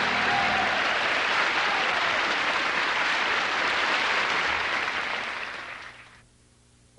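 Studio audience applauding, fading out about six seconds in.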